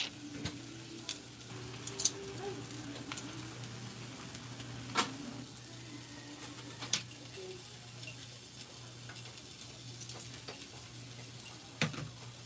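Whole fish sizzling on a ridged grill plate, a steady hiss broken by scattered sharp pops and ticks, the loudest about two and five seconds in.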